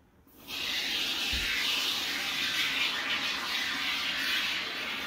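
Aerosol can of Loctite Tite Foam expanding foam sealant spraying, a steady hiss that starts about half a second in.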